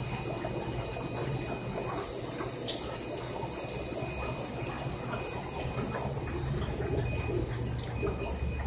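Steady low hum with a rushing, water-like noise from aquarium equipment, typical of air pumps running sponge filters bubbling in the tanks.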